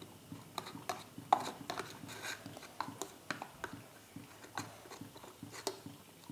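A spoon clicking and scraping against a small plastic tub in irregular strokes, a few a second, as tamarind pulp is mashed and stirred into a little water to dissolve it.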